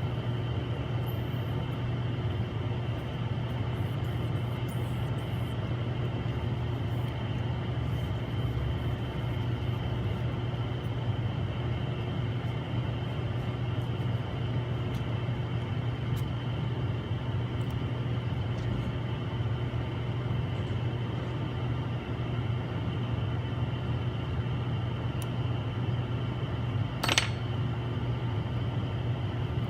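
Steady machine hum made of several fixed tones, with a single sharp click about 27 seconds in.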